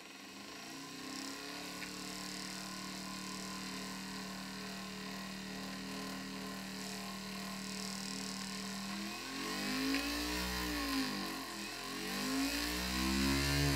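3D-printed brushless motor spinning with a steady whine, its pitch sweeping up and down several times from about nine seconds in as its speed is changed, passing roughly 3300 RPM. At some speeds a low heavy drone of vibration joins in, which the maker puts down to the rotor not being balanced at all.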